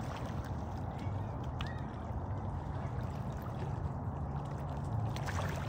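Lake water lapping and trickling steadily against the rocks of the shoreline.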